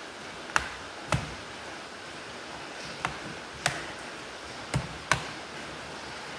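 Sharp plastic clicks, six in all, as the plastic case parts of an HP 1000 laptop are pressed and snapped back into place, over a steady hiss.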